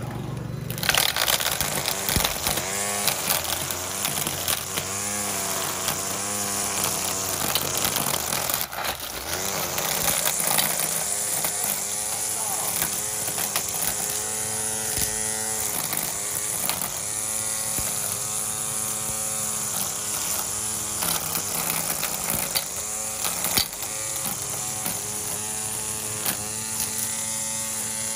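Tolsen 87372 cordless battery string trimmer cutting grass: a steady electric-motor whine over the hiss of the spinning line, its pitch rising and falling over and over as the line bites into the grass and frees up again.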